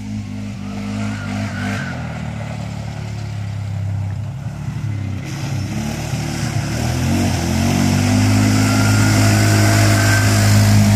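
ATV engine running steadily as the quad drives through shallow lake water, with a hiss of spraying water from about halfway through. The engine grows louder near the end as it comes closer.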